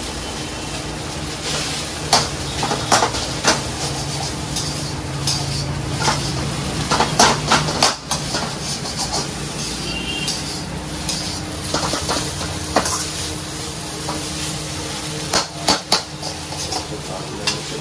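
Metal spatula scraping and clinking irregularly against a metal wok as boiled noodles are tossed with egg and vegetables, over a steady sizzle from the pan.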